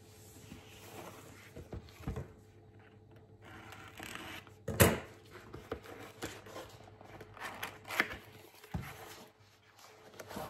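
Cardboard kit box being handled and opened: scattered taps, scrapes and knocks of card against card and the table, with a sharp knock about five seconds in and another near the end.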